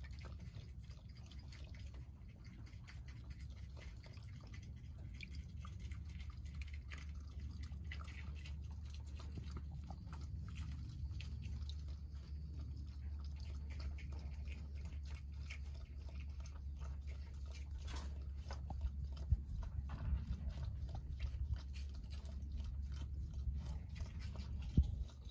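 Raccoon dabbling its paws in a shallow tub of water, feeling for pieces of egg, with many small wet clicks, splashes and drips, over a steady low rumble.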